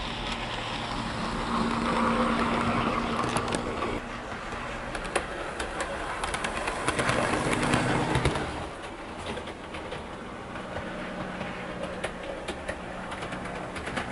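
Hornby Class 50 OO gauge model locomotive running on the layout track: a steady electric motor hum with small clicks of wheels over the rail joints, swelling louder twice as the train passes close and fading about two-thirds of the way through.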